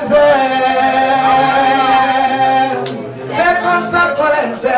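A man singing into a handheld microphone, holding one long note for nearly three seconds, then a short break and more sung phrases.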